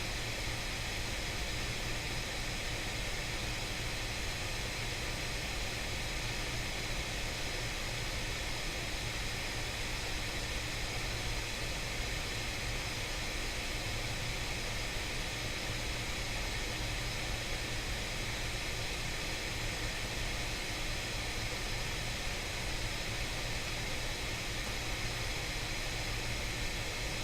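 Steady background hiss with a low hum underneath, even throughout, with no distinct events.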